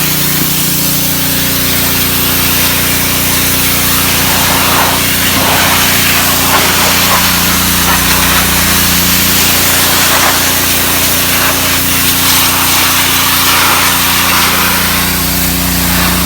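Gas pressure washer running under load: the single-cylinder Honda GCV160 engine drones steadily beneath the loud, continuous hiss of the high-pressure water spray.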